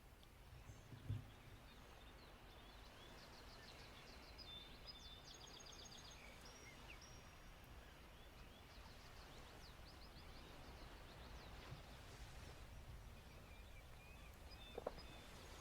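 Faint natural ambience: small birds chirping and trilling in short runs over a low, steady rumble of distant sea waves, with a single low thump about a second in.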